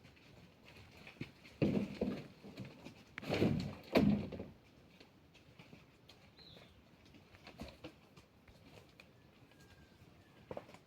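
Farm animal sounds, with two loud calls about two and four seconds in.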